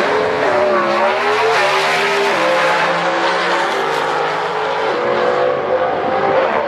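Door-bodied V8 drag car at full throttle accelerating down the strip, its engine note dipping and rising in pitch over the first couple of seconds, then holding a steady high note.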